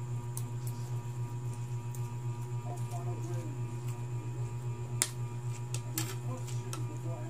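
A fork and spoon clink and scrape against a plate of noodles in a few sharp clicks, the loudest about five seconds in and another a second later, over a steady low electrical hum.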